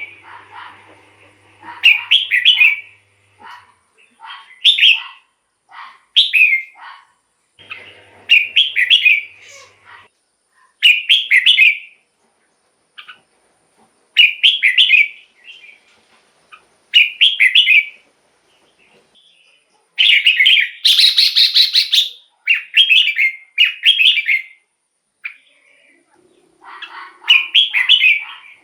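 Red-whiskered bulbul singing short, loud, warbled phrases, one every second or two with brief pauses between them.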